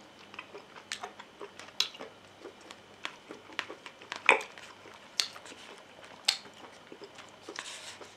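Close-up chewing of a mouthful of teriyaki-sauced mushrooms: soft, wet mouth clicks and lip smacks at irregular intervals, the loudest about four seconds in.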